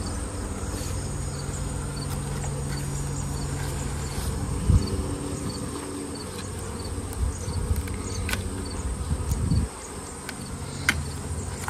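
Honey bees buzzing around an opened hive, a steady low hum, with a few sharp clicks along the way.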